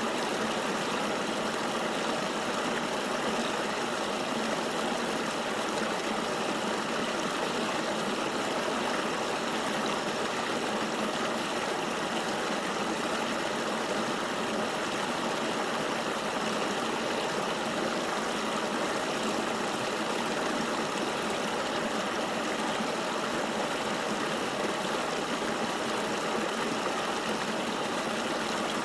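Flowing river water: a steady, even rush with no change or separate splashes.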